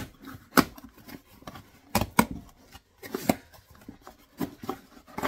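Cardboard shipping box opened by hand: packing tape torn off, flaps pulled open and the packaging inside handled. It makes a string of irregular sharp cardboard rustles and scrapes.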